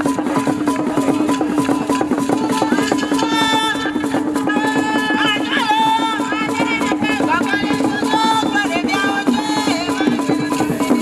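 Traditional Ewe drum ensemble playing, with barrel drums struck with sticks over a dense, fast percussion rhythm. Singing voices come in about three seconds in and carry on over the drumming.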